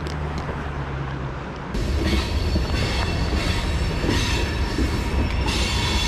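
Train passing on the rails: a steady low rumble, then about two seconds in a loud, harsh scrape of the wheels squealing on the track that keeps on. An awful scrape, about the worst from trains in a while.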